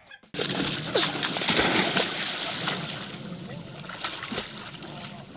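Water splashing and sloshing as a dog swims in a river. It starts suddenly, is loudest for the first two seconds or so, then settles to a lower level.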